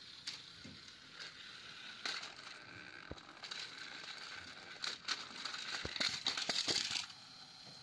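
Battery-powered toy trains rattling along plastic track with scattered clicks and knocks, then a burst of loud clattering about six seconds in as the cars tip off the track.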